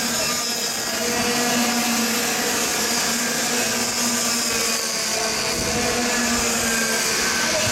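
Several cadet-class two-stroke kart engines racing at high revs at once, a steady high buzz of overlapping engine notes.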